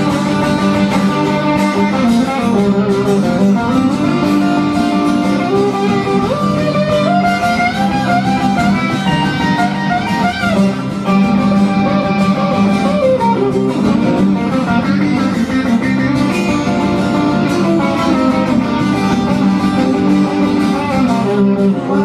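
Live instrumental break: an acoustic guitar strummed steadily while an electric guitar plays a lead line over it, with bent, gliding notes around the middle.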